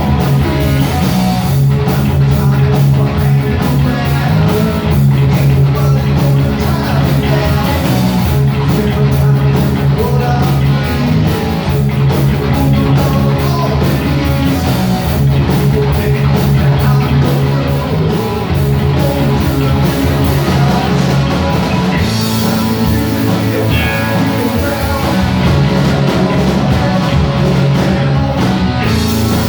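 Heavy metal band playing live and loud: distorted electric guitars and bass over driving drums.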